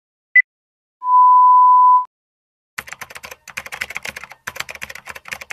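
Film countdown leader sound effect: a short high beep, then a steady beep held for about a second, ending the count. About three seconds in, a rapid run of uneven clicks like keyboard typing starts.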